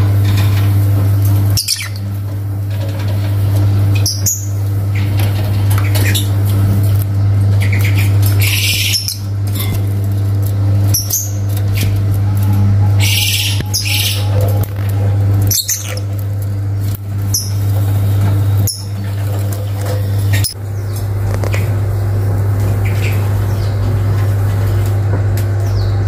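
Lovebirds giving short high chirps and squawks, a handful of times, over a loud steady low hum.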